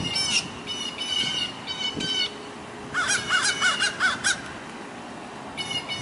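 Crows cawing in repeated short calls while mobbing a great horned owl, with a quicker run of about seven short notes in the middle.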